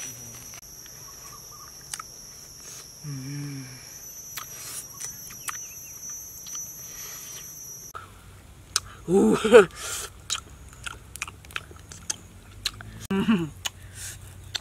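A steady high-pitched ringing with faint scattered clicks for the first half. Then a boy eating noisily, with many sharp wet smacks and clicks, and two short vocal exclamations that fall in pitch, the louder one about a second after the change.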